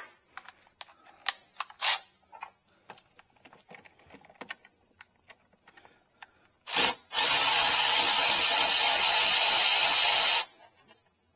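Light clicks and clinks of a socket and ratchet being fitted, then a Milwaukee M12 Fuel 3/8-inch cordless ratchet gives a short burst and runs steadily for about three seconds, spinning out a bolt that has already been broken loose.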